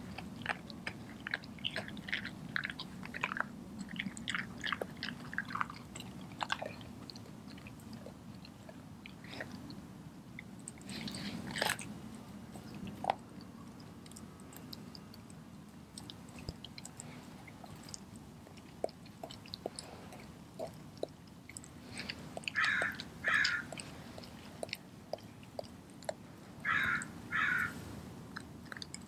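A Doberman chewing and crunching a whole raw chicken with its feathers on, with wet chewing and many sharp crunches and clicks of bone. There is a quick run of crunches early on and two pairs of louder short bursts in the last third.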